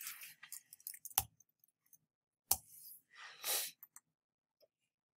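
Computer keyboard and mouse clicks as an address is typed and a link clicked: scattered light taps, with two sharper clicks about a second apart.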